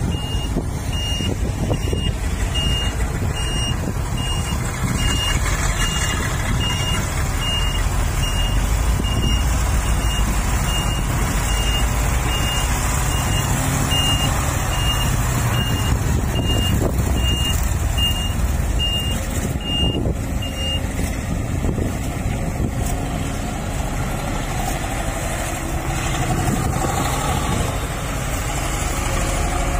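Heavy diesel machinery running steadily, with a reversing alarm beeping at an even pace, about one beep a second. The beeping stops about two-thirds of the way through while the engine rumble goes on.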